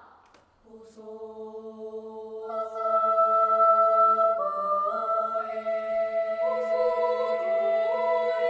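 Held, sustained chords of closing music: notes enter one by one about a second in and the harmony shifts step by step a few times. A fading tail of crowd noise comes first.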